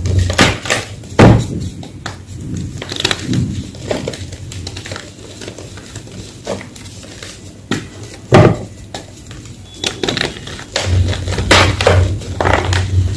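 Homemade gym chalk blocks being crushed, with irregular crunches and crumbling crackles, two louder crunches about a second in and past the middle, and a quicker run of crunches near the end.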